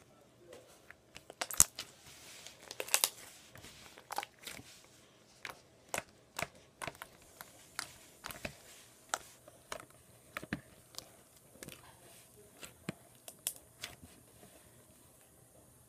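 Thick blue slime with foam beads being stretched, folded and pressed by hand, giving irregular sharp clicks and pops, the loudest about a second and a half in.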